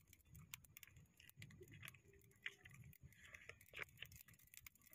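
Faint, irregular crackles and small pops of a little fire of dry sticks burning.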